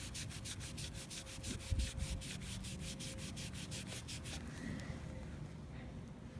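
Quick back-and-forth rubbing strokes, about five a second, scrubbing old paint off a BMX wheel; the strokes stop about four seconds in.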